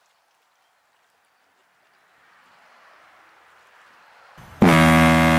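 Near silence, then a faint hiss that slowly swells, then about four and a half seconds in a loud, steady sustained chord of background music starts abruptly.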